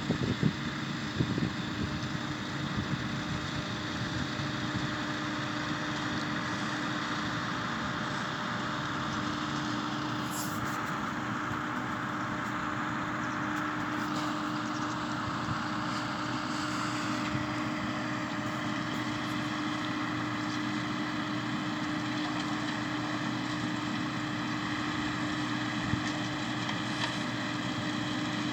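Tractor engine running steadily, a constant drone with an even hum, with a few louder knocks in the first second or so.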